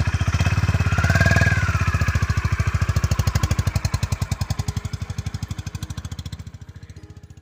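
Honda motorcycle engine running with an even, regular beat as the bike pulls away, the sound fading steadily as it rides off into the distance.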